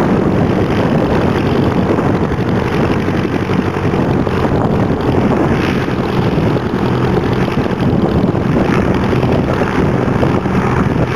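Rutan Cozy III light aircraft's rear-mounted engine and pusher propeller running steadily at low power as it taxis.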